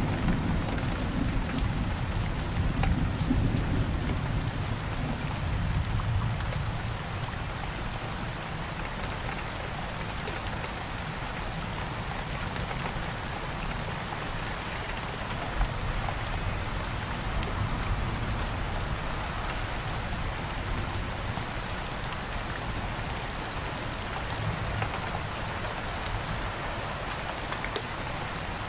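Heavy rain on a window pane: a steady hiss with scattered ticks of drops striking the glass. A low rumble of thunder dies away over the first several seconds.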